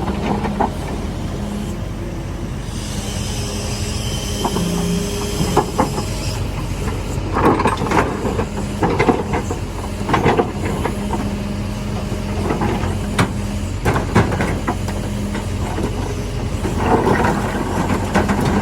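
Excavator engine running steadily under load, with a high hydraulic whine about three seconds in and repeated knocks and clatter of rubble being scooped and dumped.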